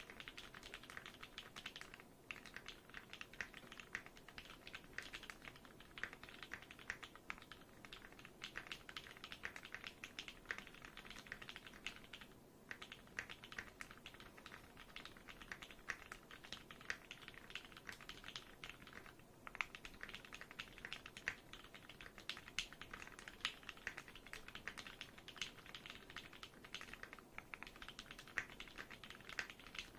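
TGR x Singa Unikorn mechanical keyboard being typed on steadily and fast, a dense run of key clacks broken by a few short pauses, recorded through a phone microphone.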